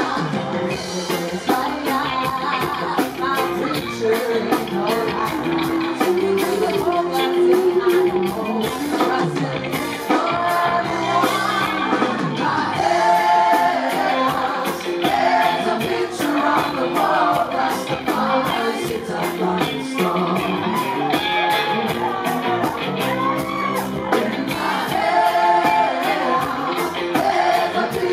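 Live band playing with a woman singing lead over electric guitars and drums, a cymbal keeping a steady beat.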